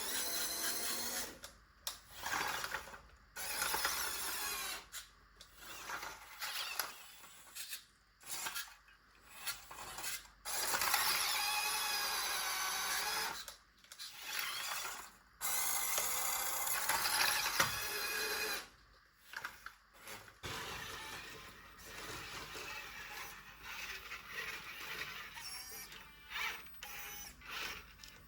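Small RC car's electric motor and gears whirring in stop-start bursts, the pitch of the whine wavering as it drives.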